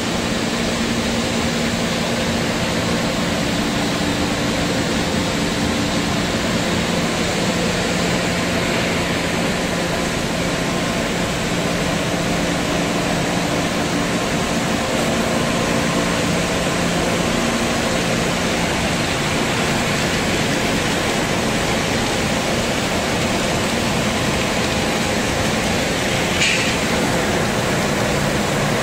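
Panko bread-crumb production line running: a twin-screw food extruder and its electric motors make a steady mechanical din with a low hum. A brief sharper sound cuts through near the end.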